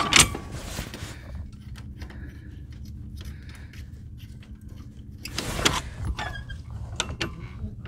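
Metal linkage parts on a John Deere 3038e's three-point hitch clinking and rattling as the control rod is worked by hand, with a clink just after the start and a cluster about five and a half seconds in, over a steady low hum. The linkage is stuck: the rod only bends and the arm does not move.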